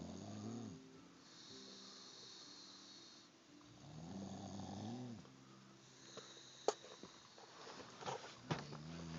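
Snoring: a pitched snore on each breath, roughly every four and a half seconds. One ends just after the start, one falls in the middle, and another begins near the end, with a few sharp clicks just before the last one.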